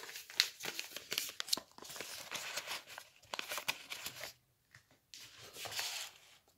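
Irregular rustling and crinkling with small clicks and scuffs as things are handled close to the microphone, with a short lull a little after the middle.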